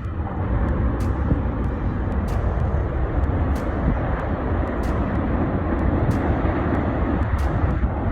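A steady, low rumbling roar of outdoor noise, with faint short ticks about once or twice a second.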